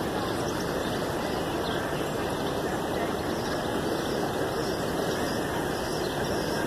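Steady rushing of flowing floodwater, a continuous even noise that does not change.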